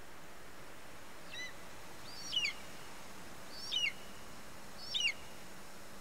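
White-tailed eagle calling: a faint call about a second in, then three short, sharp calls about a second and a half apart, each dropping in pitch, over a steady hiss.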